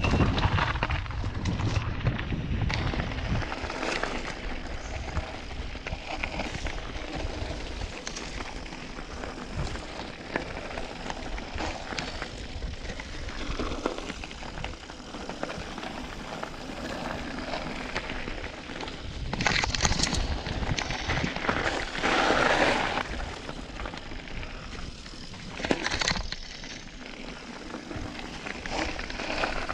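Mountain bike descending a gravel trail: tyre noise on loose gravel with rattling of the bike and wind on the microphone. There are louder, rougher stretches about twenty, twenty-two and twenty-six seconds in.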